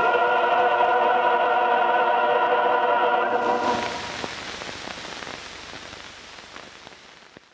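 Closing music ending on a long held chord. About three and a half seconds in it gives way to the hiss and faint crackle of an old film soundtrack, which fades away.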